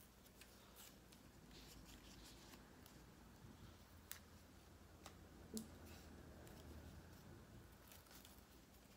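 Near silence: room tone with a few faint clicks and rustles from small craft sticker pieces being peeled and handled.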